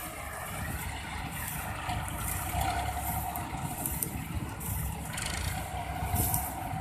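Small farm tractor's diesel engine running steadily as it tows a trailer, with a steady whine that comes and goes over the engine.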